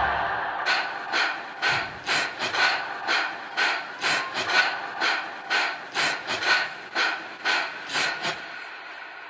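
Rapid, ragged gasping breaths, about two to three a second, as the music fades out in the first second; the breathing stops a little after eight seconds in.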